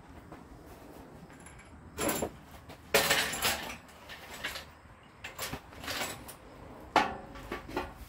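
Rusty steel Model A chassis frame being lowered onto the front axle and leaf spring: a burst of metal clattering and scraping about three seconds in, several lighter knocks, and a sharp ringing clank near the end.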